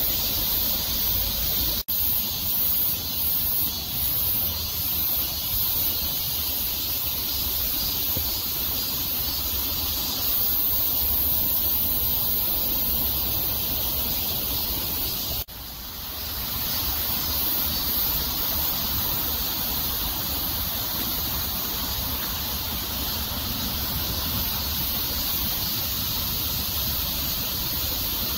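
Steady rain falling, a constant hiss. It cuts out briefly twice, about two seconds in and again about halfway.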